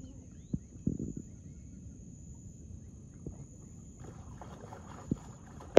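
A hooked fish splashing and thrashing at the water's surface as it is played in on a fishing rod, with water churning more strongly over the last couple of seconds and a few dull knocks. A steady thin high whine runs underneath.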